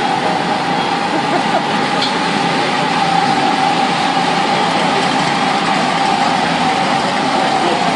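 Go-kart engines running as several karts lap the track: a steady, loud engine drone holding one high note, over a dense hiss.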